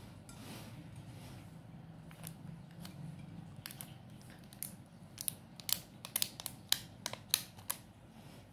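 Thin clear plastic cake tray crackling and clicking as fingers grip and lift it, a quick run of sharp clicks through the second half.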